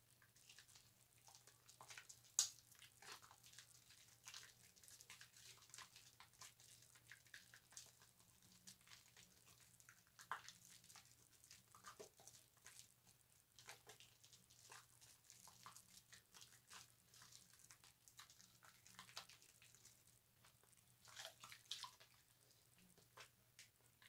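Faint wet crackling and squishing of bar soap being lathered on a loofah: irregular soft clicks throughout, with one sharper click about two and a half seconds in, over a faint low hum.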